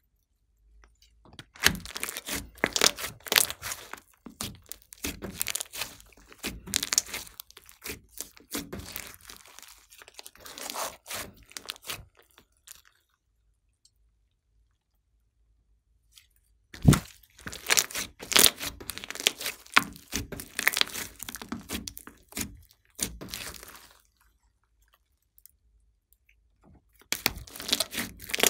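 Thick glossy slime, mixed with bits of clay and beads, being stretched and squeezed by hand: dense crackling and popping clicks in long stretches, broken by two silent pauses of a few seconds while it hangs.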